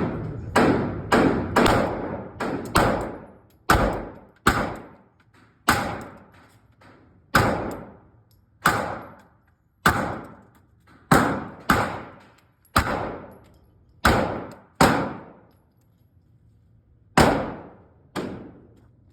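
Glock 26 9 mm pistol firing a string of about seventeen shots. They come quickly at first, then about one a second, with a longer gap before the last shot. Each shot trails off in a short echo.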